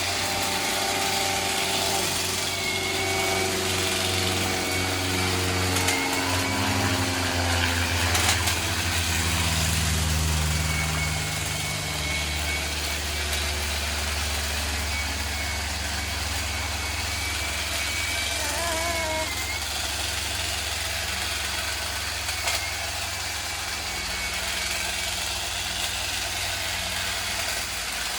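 Battery multi-tool pole hedge trimmer running steadily, its low motor hum shifting in pitch a few times as it works.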